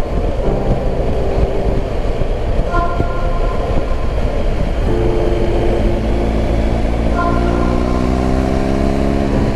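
Wind rush and the boxer-twin engine of a BMW R 1250 GS Adventure motorcycle on the move, heard from a camera on the bike. About halfway through, the engine note climbs steadily as the bike accelerates.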